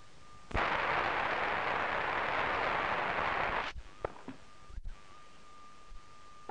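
Crowd applauding, starting suddenly and cut off sharply after about three seconds. A faint steady high tone and a few soft clicks follow.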